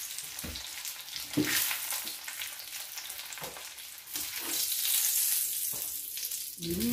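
Egg-battered cabbage cutlets sizzling in hot oil in a frying pan, with a few short knocks of a spatula against the pan and plate as the pieces are lifted out.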